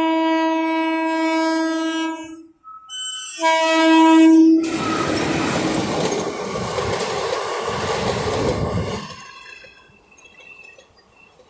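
Locomotive horn of an express train sounding two blasts, the first about two seconds long, the second shorter after a brief gap. The train then passes close by: a loud rushing roar with a regular wheel clatter, which drops away sharply about nine seconds in.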